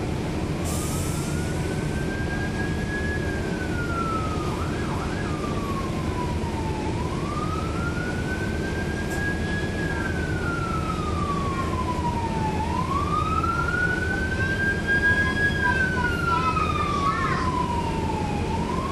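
An emergency-vehicle siren in a slow wail, rising and falling about three times, over the steady low drone of a diesel bus engine, a NABI 40-SFW transit bus's Cummins ISL9.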